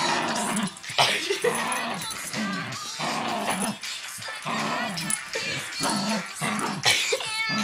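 Shetland Sheepdog growling in a rapid run of short bursts, the playful growl of a dog tugging on a sock in a tug-of-war game.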